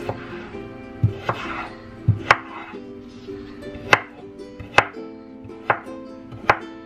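Chef's knife chopping raw potato on a wooden cutting board: about nine sharp, unevenly spaced chops as the blade strikes the board.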